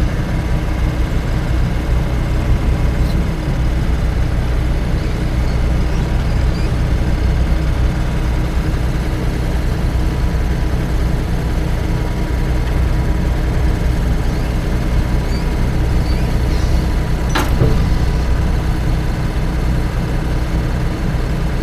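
Engine running steadily at a constant speed with a low, even hum. A single sharp metallic clank comes about 17 seconds in.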